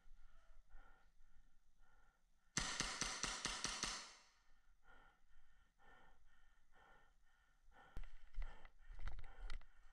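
Heavy, rhythmic breathing of an overheated airsoft player. About two and a half seconds in comes a burst of rapid full-auto airsoft gunfire lasting about a second and a half, and near the end a few more sharp shots or clacks.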